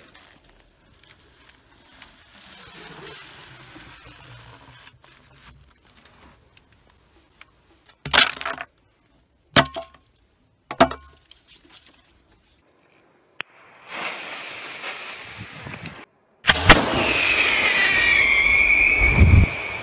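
Three short, sharp bursts about eight to eleven seconds in, then a hiss, then whistle rockets launching: a loud rush with a shrill whistle that glides down and then holds one pitch.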